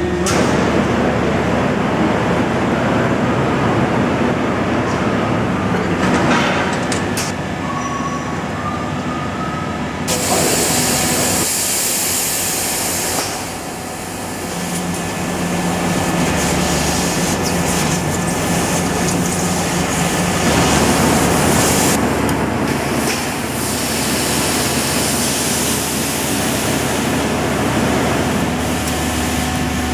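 Amada LC 2415 Alpha II 1.5 kW laser cutting machine running with a steady machine hum. About a third of the way in, a loud hiss joins it and keeps rising and falling as the head cuts sheet metal.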